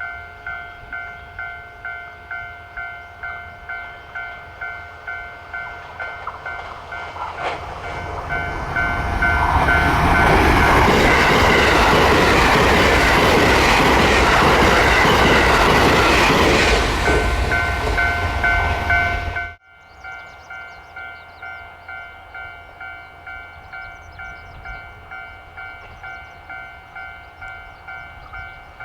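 A Japanese level-crossing warning bell rings about twice a second as a train on the Hokuriku Main Line approaches and runs over the crossing. The train's running noise builds over a few seconds and drowns the bell for about ten seconds, then cuts off suddenly, and the bell is heard ringing again.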